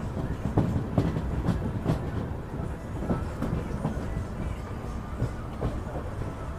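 Patalkot Express passenger coaches running through a station: a steady low rumble of wheels on rails, with sharp, irregular clacks as the wheels cross rail joints.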